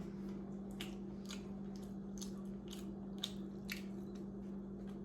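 A person chewing food with wet mouth smacks and clicks, about two a second.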